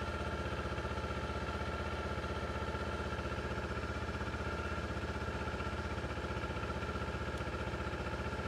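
Kawasaki Ninja sport bike engine idling steadily with an even, rapid firing pulse.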